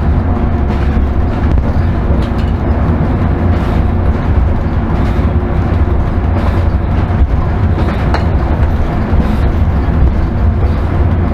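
Running noise inside the cab of an ET22 electric locomotive moving along the track: a steady, loud low rumble of wheels and running gear on the rails. Faint knocks come about every one and a half seconds.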